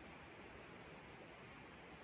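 Near silence: faint, steady room tone with a light hiss.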